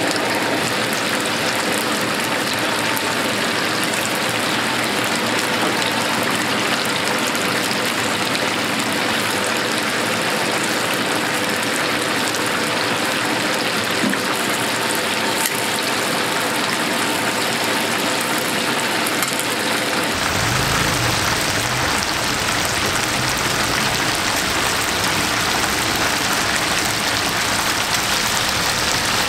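Battered chicken deep-frying in a wide pan of hot oil, a steady dense sizzle and bubbling. About two-thirds of the way through, a low rumble joins it.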